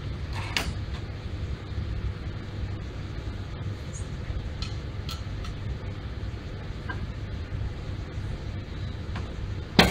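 Countertop microwave door opened with a click about half a second in and shut with a sharp, loud click near the end, with a few faint clicks in between, over a steady low room hum.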